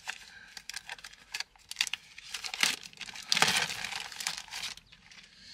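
Plastic packaging crinkling and tearing in short bursts as a spool of bungee cord is unwrapped by hand, loudest a little past halfway.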